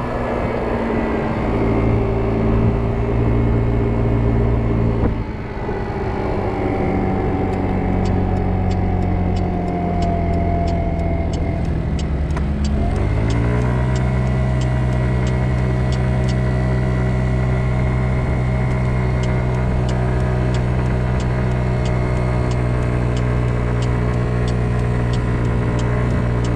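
Kymco Agility 50 scooter's 50cc engine running under way. About five seconds in the revs drop and stay low, then around twelve seconds in the pitch climbs sharply as the CVT scooter accelerates away, holding steady at speed. A faint regular ticking sounds alongside from about eight seconds on.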